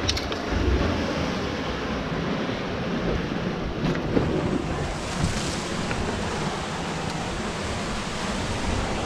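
Ocean surf washing steadily, with wind rumbling on the microphone.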